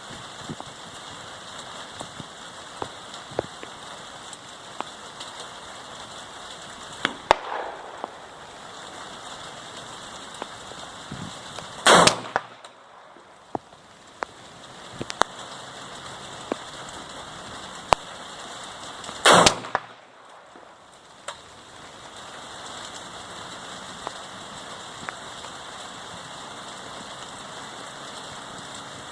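Two loud rifle shots about seven seconds apart, near the middle of the stretch, with a fainter shot earlier, over a steady hiss of rain and scattered small ticks.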